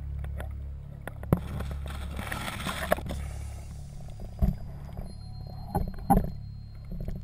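Underwater sound picked up by a diving camera: a muffled low rumble, with a rush of exhaled scuba-regulator bubbles about one and a half to three seconds in, and several dull knocks spread through the rest.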